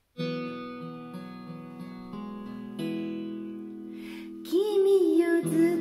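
A gentle acoustic guitar karaoke backing track starts with plucked notes, about one a second. About four and a half seconds in, a voice starts singing over it.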